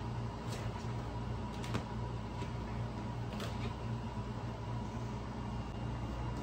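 A steady low mechanical hum with a faint high steady tone, over which a few light taps and scuffs sound as kittens scramble and paw at a bedspread.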